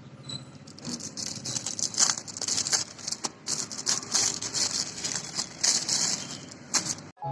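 Plastic packaging crinkling and rustling in irregular bursts, with small clicks and rattles, as photo cards are unwrapped by hand.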